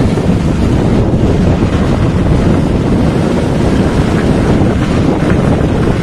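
Strong wind buffeting the microphone: a steady, loud low rumble.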